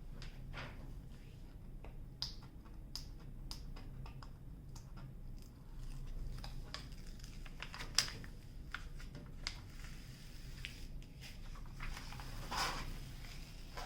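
Scattered faint clicks and taps with a short rustle near the end: hands handling a diamond painting canvas and its cover paper.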